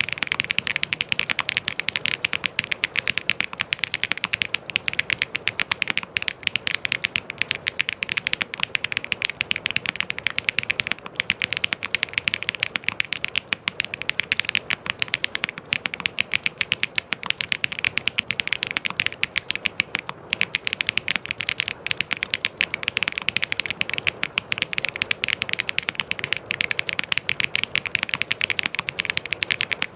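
Fast, continuous typing on a mechanical keyboard: dense, rapid key clicks with the occasional short pause.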